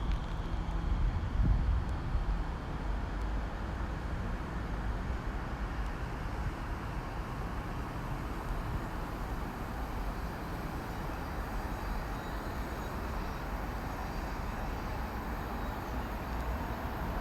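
Class 345 electric train at the station platform: a steady low rumble, loudest over the first two seconds.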